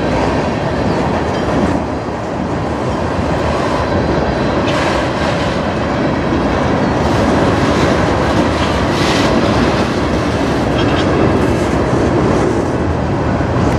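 Freight train tank cars rolling past at close range: a steady rumble of steel wheels on the rails, with a few brief sharper sounds mixed in.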